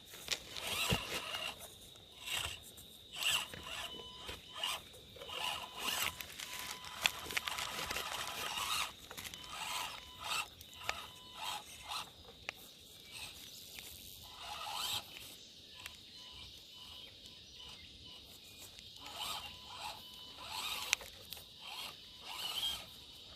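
Axial SCX24 micro crawlers' small electric motors and gearboxes whirring in short, irregular bursts as the throttle is worked over rough ground.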